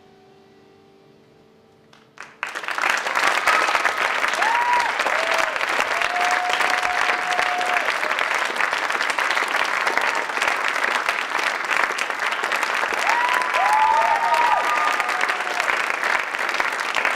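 A faint held tone fades under near quiet. About two seconds in, an audience suddenly breaks into loud, steady applause, with a few whoops and cheers rising over the clapping.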